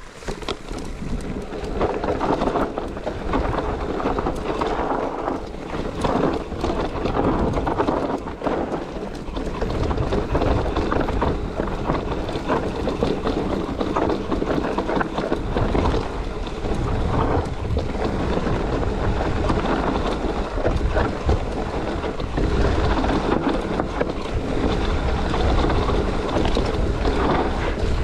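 Enduro mountain bike descending a loose, dusty trail: tyres crunching over dirt and stones and the bike rattling over bumps, with wind buffeting the GoPro Hero 9's microphone in gusts of low rumble.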